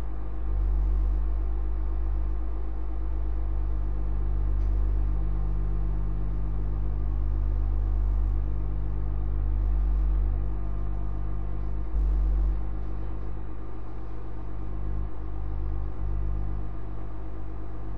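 Steady low electrical hum, briefly louder about twelve seconds in.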